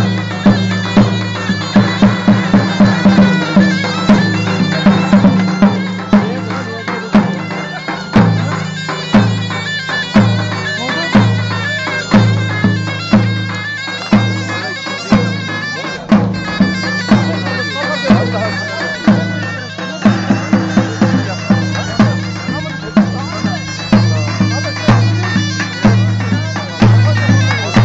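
Halay dance music played by zurna and davul: the shrill double-reed zurna plays a wavering, ornamented melody over the regular beat of the big bass drum.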